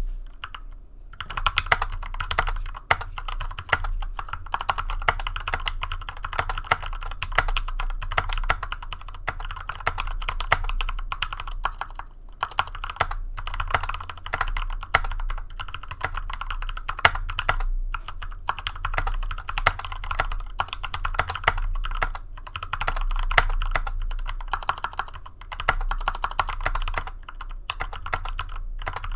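Fast, continuous typing on a GK64 mechanical keyboard with lubed Gateron Yellow linear switches, stock stabilisers and foam beneath the keyboard, a dense run of key clacks with only brief pauses. A low steady hum sits underneath.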